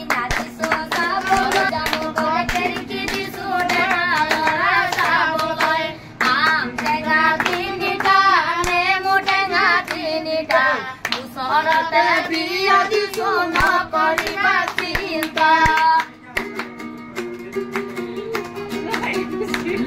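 A woman singing an Assamese folk song in long, wavering phrases with short breaks between them, over steady hand-clapping and a strummed guitar.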